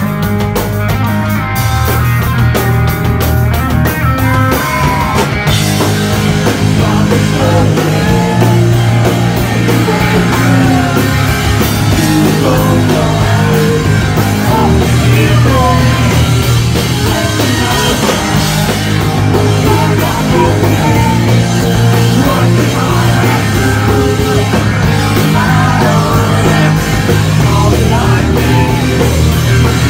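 Live rock band playing loud: drum kit, guitar and singing.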